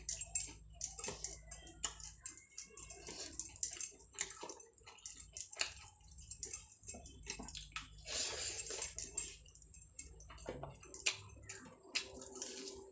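Close-up eating sounds of rice eaten by hand: wet chewing and mouth smacks in irregular short clicks, with a longer rustling smear about eight seconds in.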